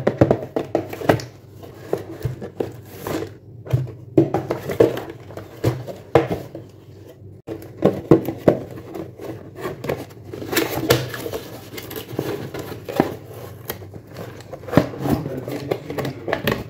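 Hands handling and opening a cardboard toy box: irregular scraping, tapping and rustling of cardboard and packaging, with the plastic toy shark drawn out of the box near the end.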